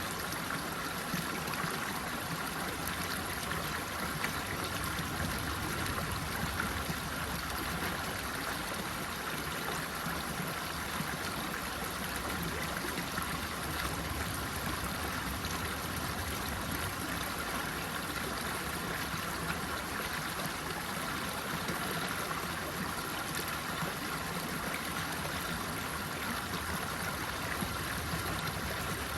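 Running water, a stream flowing with a steady even rush and light trickling.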